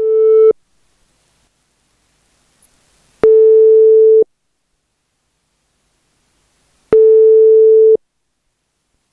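Ringback tone of a Viber voice call being placed: a steady beep about a second long, repeating about every three and a half seconds, heard three times while the call waits to be answered.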